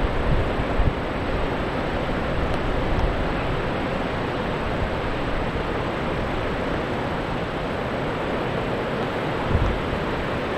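Steady wash of ocean surf breaking on a sandy beach below, heard from high above, mixed with wind buffeting the microphone in low gusts near the start and again about nine and a half seconds in.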